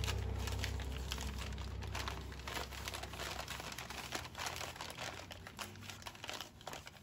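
Paper crinkling and rustling in irregular crackles as it is pressed, smoothed and folded by hand over the top of an engine block to mask it for painting.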